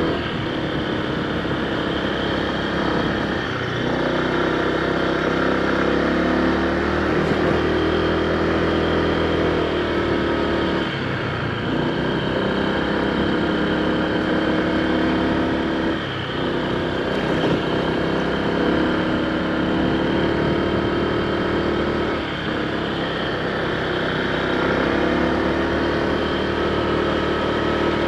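Honda PCX160 scooter's single-cylinder engine running under way, its pitch rising and falling as the throttle is eased off and opened again a few times.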